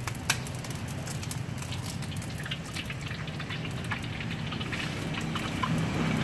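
Hot oil crackling and spattering in a wok as an egg is fried, with one sharp tap near the start as the egg is cracked on a metal spatula.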